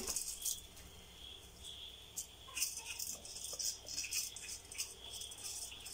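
Pot of rice and whole spices boiling in water, bubbling with irregular small pops and crackles.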